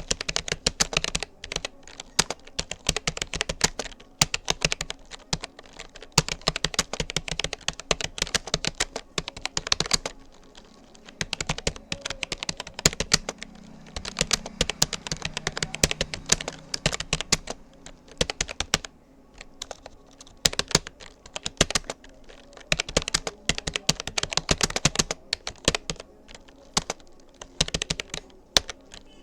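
Typing on a Rapoo computer keyboard: quick runs of key clicks in bursts with short pauses between them.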